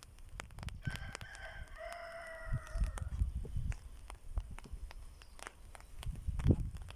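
A rooster crowing once, starting about a second in and lasting about two seconds. Low thuds and scattered sharp clicks come and go throughout.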